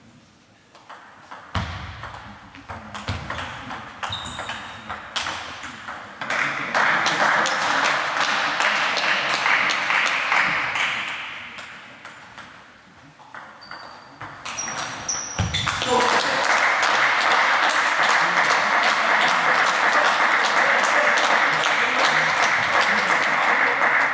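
Table tennis balls clicking sharply off bats and tables during rallies, from more than one table at once, in a hall. Two long stretches of loud, even noise sit beneath the clicks.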